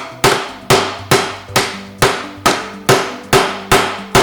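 A toy hammer banging steadily on a children's building set's pieces, about ten even strikes at roughly two and a half a second, each with a short ringing decay.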